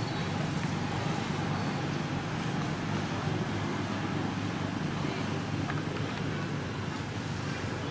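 Steady low rumble of motor traffic, even throughout, with no distinct events.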